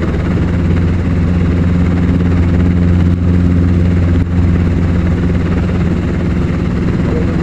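Training helicopter's engine and rotor system running steadily, a constant loud low drone with a steady hum.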